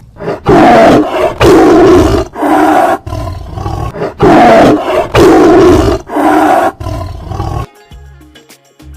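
Tiger roaring: a series of loud, rough roars, a run of four heard twice over.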